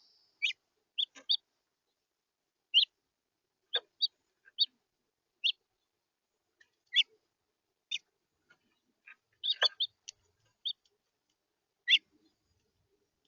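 House finches calling: short, separate chirps at irregular intervals, roughly one a second, with a quick cluster of several just under ten seconds in.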